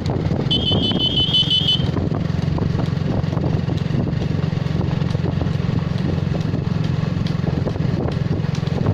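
Motorcycle engine running steadily at road speed. A high, pulsing electronic beep sounds for about a second near the start.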